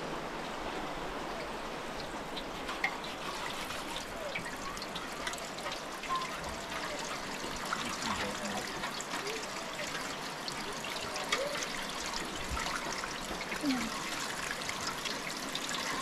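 Water running from a tank's tap in a steady trickle into a metal basin, with small splashes as hands move in the water.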